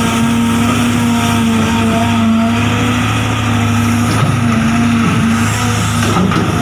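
Remote-control toy excavator's motor running with a steady hum, its pitch dipping briefly a few times.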